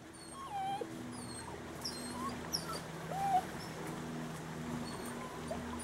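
Hound dog whimpering softly a few times, in short sliding whines.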